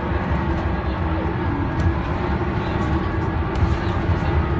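Cabin noise of a Volvo B12M-65 city bus, its Volvo DH12D 12-litre six-cylinder turbodiesel running with a steady low drone and a few steady whining tones.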